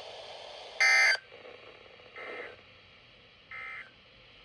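Emergency Alert System end-of-message data signal: three short bursts of digital tones about a second and a half apart, the first the loudest, with a faint radio hiss in the first second. The bursts mark the end of the alert broadcast.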